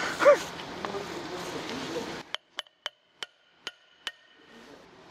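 Small hammer tapping a bearing into an aluminium differential housing: about six sharp metal strikes, from a little past halfway in, each leaving a ringing tone, and one more strike near the end.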